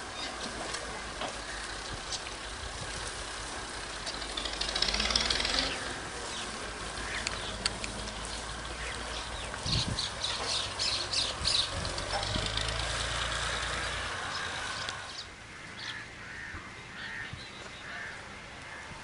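Farmyard ambience: a low steady motor hum that stops about fourteen seconds in, with scattered animal and bird calls, then a run of short repeated calls near the end.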